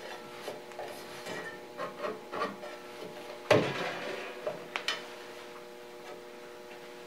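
Small clicks, scrapes and rubbing of parts being handled at a surface grinder during assembly, with one sharp knock about three and a half seconds in, over a faint steady hum.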